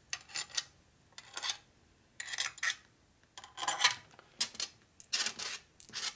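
A handful of steel cam cover screws clinking and rattling together in the hand as they are picked through and set into the cover, in short irregular bursts of metallic clatter, with a few bright rings near the end.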